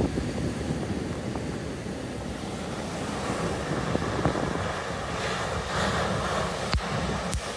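Heavy surf pounding a beach, with wind buffeting the microphone into a steady low rumble. A breaking wave's crash and wash swells about five seconds in, and two brief sharp clicks come near the end.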